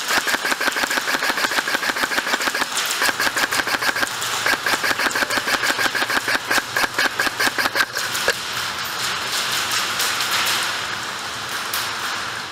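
Electric airsoft rifle firing on full auto: long bursts of rapid, evenly spaced shots over a steady whine, with a short pause about two seconds in and a longer lull after about eight seconds.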